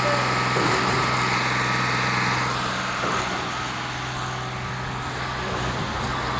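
Putzmeister concrete pump running steadily with a low engine hum and a faint steady whine.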